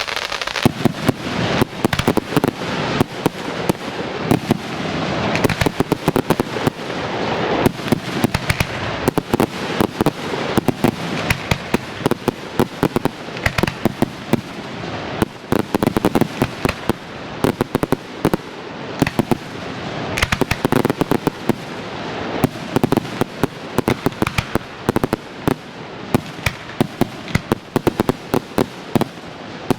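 Fireworks display in full swing: a dense, unbroken run of sharp bangs from bursting shells and cakes, over continuous crackling.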